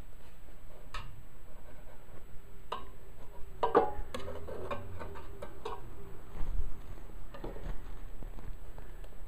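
Scattered light clicks and scrapes from handling the metal chimney and wick assembly of an Aladdin Blue Flame 37 kerosene heater as the new wick is eased down into place. There are about half a dozen, the loudest just under four seconds in, over low handling rumble.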